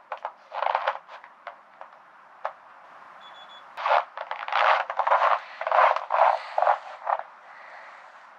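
Dry, very cold snow crunching in a run of short bursts underfoot and under hand, thickest in the second half. A single short electronic beep about three seconds in comes from a handheld infrared thermometer taking a reading.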